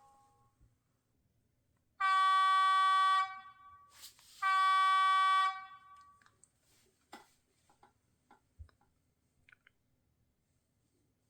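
Sound decoder of an HO scale Auscision V/Line N class model locomotive playing its multi-chime horn through the model's small speaker: two blasts of about a second each, a short gap between them. A few faint clicks follow.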